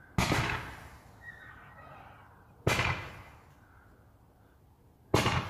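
Three fireworks bangs about two and a half seconds apart, each sharp and dying away over about a second.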